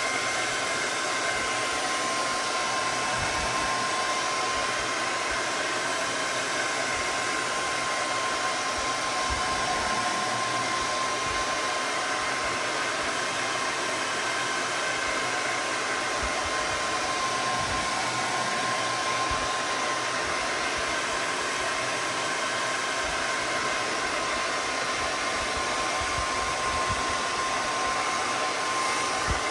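Hair dryer running steadily: a constant rush of blown air with a steady whine from its motor, used to warm and soften the screen edges.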